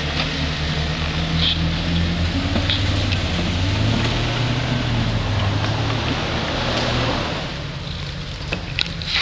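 Jeep Cherokee engine working under load as the truck climbs a rutted mud hill, its pitch rising mid-way and then easing off about seven seconds in.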